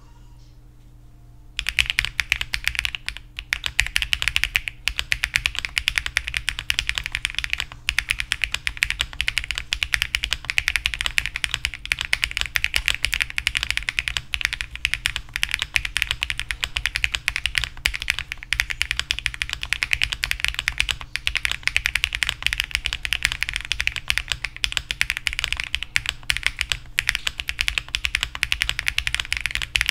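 Fast, continuous typing on a Tofu65 2.0 custom mechanical keyboard with HMX Canglan V2 switches, GMK Handarbeit R2 keycaps, a polycarbonate plate and full foam. The keystrokes start about a second and a half in and run densely, with only a few brief pauses.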